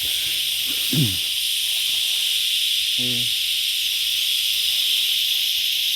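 Chorus of cicadas, a dense, steady high buzzing hiss that fills the background. A man's voice makes a short sound about a second in and another near three seconds.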